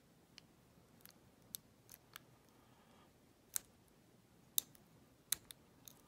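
Sharp metallic clicks, about ten scattered and unevenly spaced, from a hook pick lifting and setting the pins of an old Yale padlock under tension as it is picked open.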